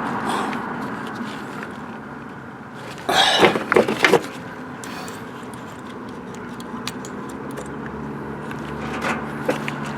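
Handling noise from wiring work: scattered small clicks and a brief rustling clatter about three seconds in as test-light leads and connectors are handled, over a steady low background hum.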